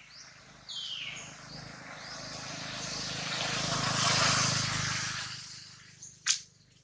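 A passing vehicle's engine noise swells over a few seconds, loudest about four seconds in, then fades away. A couple of short falling chirps come near the start, and one sharp click comes near the end.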